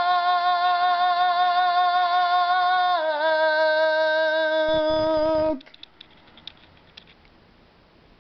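A singing voice holds the song's final note, stepping slightly down in pitch about three seconds in and stopping abruptly about five and a half seconds in. Only a few faint clicks follow.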